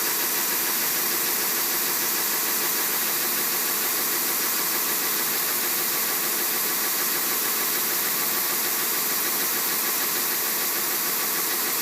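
Timesavers 137-HD wide belt sander running steadily: an even, hissy machine noise that holds the same pitch and level throughout.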